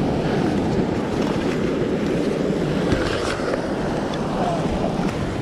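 Steady rush of wind on the microphone over surf washing against a rock ledge.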